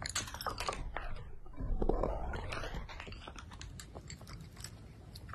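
Cat crunching dry kibble, a dense run of sharp crisp crunches and clicks from its chewing.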